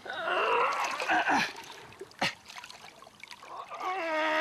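Water splashing and trickling as a large wels catfish moves at the surface, with a single sharp click about two seconds in. Near the end a held musical note begins.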